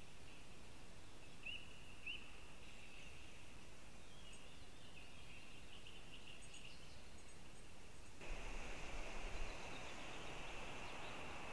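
Forest ambience: a steady hiss with a few short, faint songbird chirps and scattered small calls. A little past two-thirds through, it switches abruptly to a louder hiss with a few low bumps.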